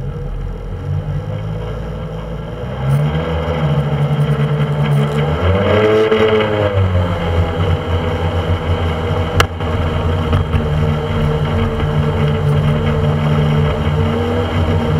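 Motorboat engine running under way with water and wind rushing past, picking up about three seconds in and rising then falling in pitch around six seconds in. A single sharp click about nine seconds in.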